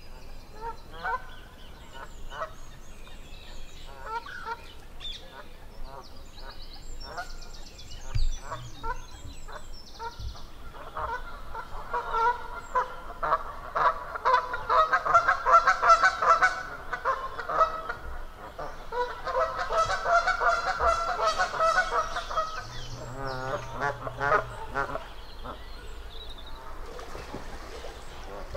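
Geese honking: scattered single honks, then two long bouts of rapid, loud honking in the middle.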